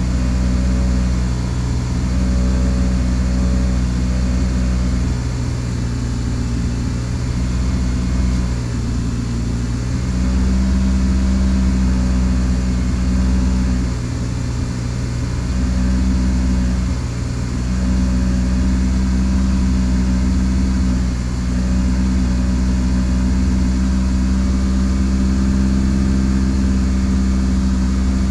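Toyota Celica's inline four-cylinder engine idling steadily shortly after a cold start, running through a new aftermarket exhaust that is a little noisier and deeper than stock.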